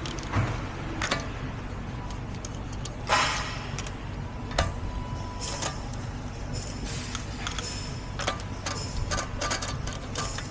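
Irregular metallic clicks and knocks of wheel bolts being fitted and tightened by hand on a car wheel, coming more often in the second half, over a steady workshop hum.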